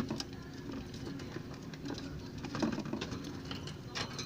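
Budgies chattering, with many short chirps and clicks scattered irregularly.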